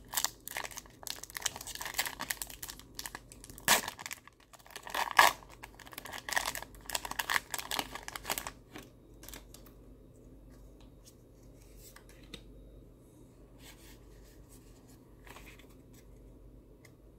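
Foil wrapper of a Pokémon trading card booster pack being torn open and crinkled in the hands, a dense run of sharp crackles with two louder rips around four and five seconds in. After about eight seconds it gives way to faint, scattered rustles as the cards are handled.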